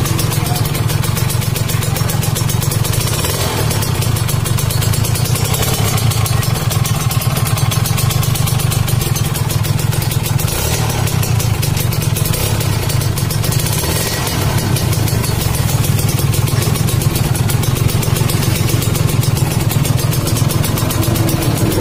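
Kawasaki Ninja RR 150's single-cylinder two-stroke engine idling through its stock exhaust with the silencer gutted out. The sound is a loud, steady, fast pulsing.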